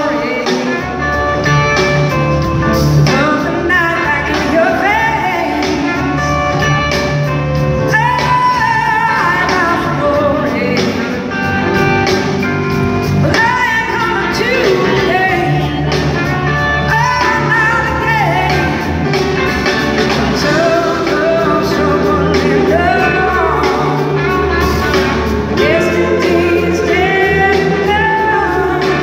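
Live blues-rock band playing, with a woman singing lead over electric guitar and rhythm section.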